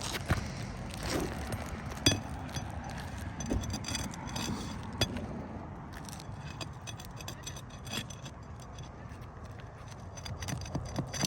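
High-profile roof ridge cap being pried and scraped loose from the shingles beneath: irregular scraping, crackling and sharp taps, a few louder knocks among them. The cap is hard to separate from the shingles.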